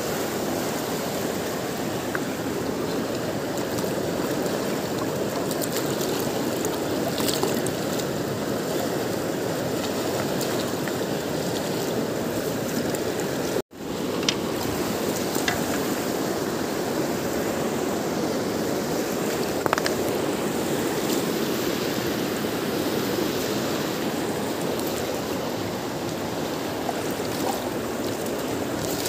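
Fast river water rushing steadily over rocks and stones, with a momentary break about halfway through.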